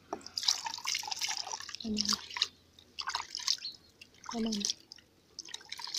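Tap water running and splashing into a metal cooking pot while a hand rubs and swishes the water around inside it to rinse the pot clean, in irregular splashes and drips.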